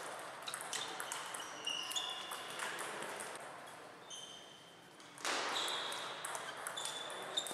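Table tennis ball clicking back and forth off bats and table during a rally, with brief sneaker squeaks on the hall floor. The clicks stop about three seconds in as the point ends, and about five seconds in a sudden rush of noise comes as the next rally starts.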